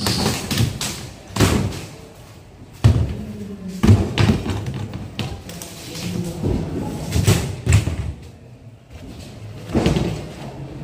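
Demolition of a temporary shelter's frames and panels with pry bars: irregular heavy thumps and knocks as the structure is struck and pulled down, about one every second or two.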